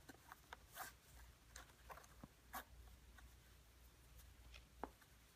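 Faint rustling and a few light ticks of hands handling and tucking the laces of a sneaker.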